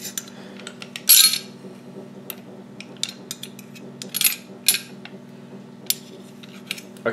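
Clicks, clinks and short scrapes of the APS ASR 112 airsoft rifle's rail transform handguard and rail segment being handled and forced, the rail piece stuck. Louder scrapes come about a second in and twice around four seconds in.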